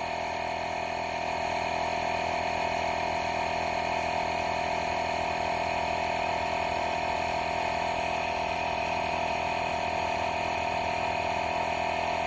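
Cordless battery-powered tire inflator's small compressor running steadily, pumping air into a four-wheeler tire. It gets slightly louder about a second in.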